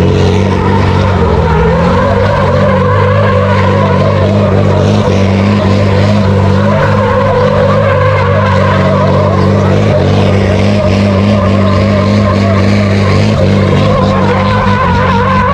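Volkswagen Constellation truck's diesel engine held at steady revs while its rear tyres squeal and skid through continuous donuts. The engine note and the wavering tyre squeal run together without a break.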